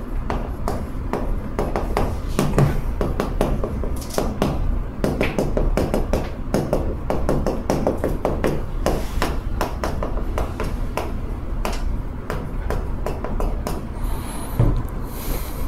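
Chalk writing on a blackboard: quick taps and short scrapes of the chalk strokes, several a second, with brief gaps between words. A steady low hum runs underneath.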